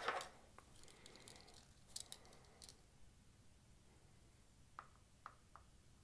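Near silence with faint clicks and small crackles from a soldering iron tinning stripped wire ends, the flux smoking; three short pops come near the end.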